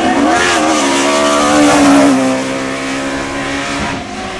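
Race car's engine at high revs as it drives past, its pitch rising briefly, then dropping as it goes by and fading toward the end.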